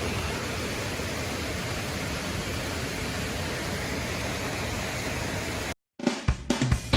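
Steady rushing noise, cut off abruptly about six seconds in; a guitar rock song starts straight after.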